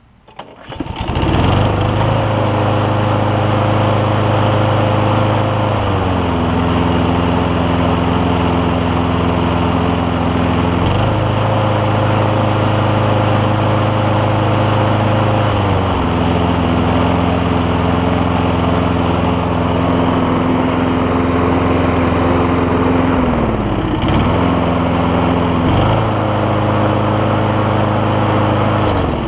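Toro Super Recycler push mower engine starting about a second in and running steadily without hunting, its carburettor jet drilled out to cure a surge. It is throttled down to a lower speed and back up to full speed about three times, then shuts off near the end.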